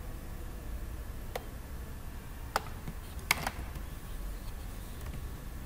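Three computer mouse clicks a second or so apart, the last the loudest, over a low steady hum.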